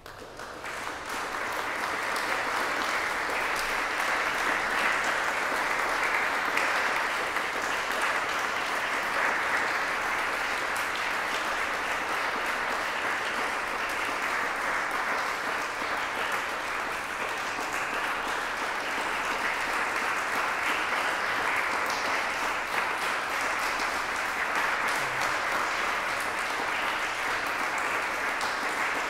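Small audience applauding: the clapping starts suddenly, builds over the first couple of seconds, then holds steady.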